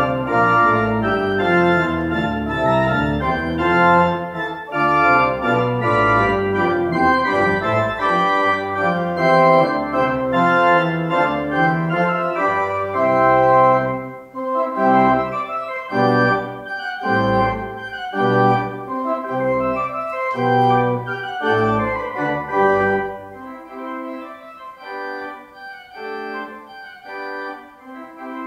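Pipe organ playing full sustained chords over a pedal bass. About halfway through, the chords turn short and detached; a few seconds later the pedal bass drops out and the playing goes quieter.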